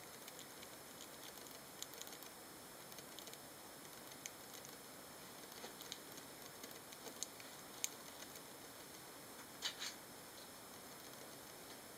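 Roborovski dwarf hamsters in their cage making faint, scattered small clicks and ticks over a steady low hiss, with a short burst of louder clicks near the end.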